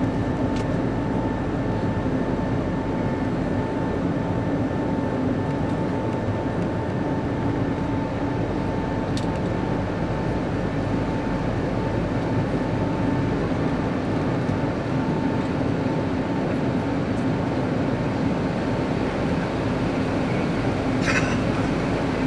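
Cabin noise of an Airbus A320neo climbing after take-off, its CFM LEAP-1A engines running steadily: an even rush of air and engine noise with a low hum and a higher steady tone running through it.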